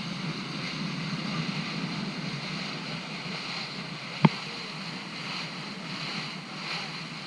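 Steady rush of wind and water around a moving excursion boat, with a single sharp knock about four seconds in.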